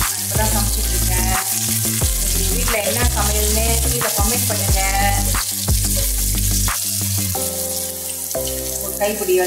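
Sliced onions, green chilies and dried red chilies sizzling as they fry in coconut oil in a nonstick pan, stirred with a wooden spatula. Background music with a deep bass line plays throughout.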